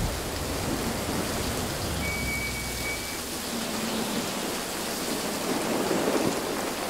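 Steady rain falling, with a low rumble under it during the first three seconds.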